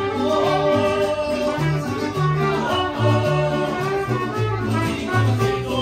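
Mariachi band playing live: strummed guitars over a bass line that steps from note to note, with a held melody on top.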